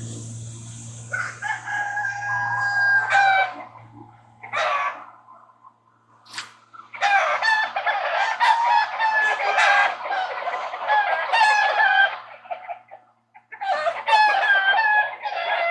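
Chickens calling: a rooster crowing, with clucking, in three bouts of long wavering calls, about a second in, through the middle, and again near the end. A low hum fades out in the first few seconds.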